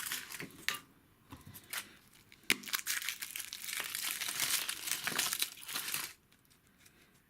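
Wrapper of a chocolate surprise egg crinkling and tearing as it is unwrapped by hand: a few sharp crackles first, then about three and a half seconds of dense crinkling from about two and a half seconds in, stopping near the end.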